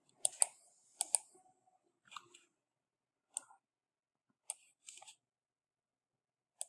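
Computer mouse and keyboard clicks: about ten short, sharp clicks spread unevenly, several coming in quick pairs like double-clicks.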